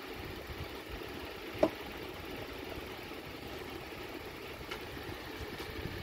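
Steady low background hum with one sharp click about one and a half seconds in, as a wooden photo fridge magnet is set onto a display board.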